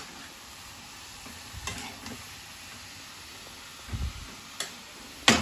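Sliced vegetable sizzling gently in oil in an iron kadhai over a low gas flame, stirred with a metal spatula that scrapes against the pan a few times. A loud metal clank comes near the end.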